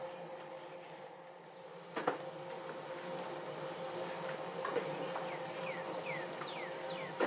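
Light rain hiss under a steady buzzing hum. A sharp click comes about two seconds in. In the last two seconds there is a quick series of short, falling bird chirps.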